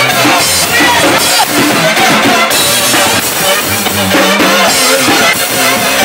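Loud music with a drum-kit beat.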